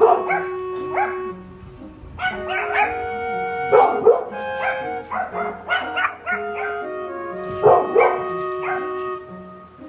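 Dogs barking in short bursts, a threat display at a robot vacuum cleaner, over background music; the loudest barks come about four and eight seconds in.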